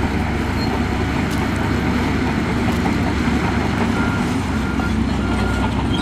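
Heavy diesel earthmoving machinery running steadily. From about four seconds in, a reversing alarm beeps at a steady pace.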